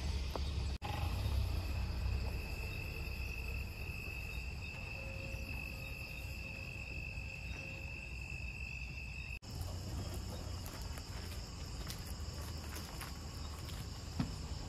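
Crickets and other night insects trilling steadily; one high, even trill carries through most of it. Underneath is a low rumble. The sound drops out for an instant twice, about a second in and near nine seconds.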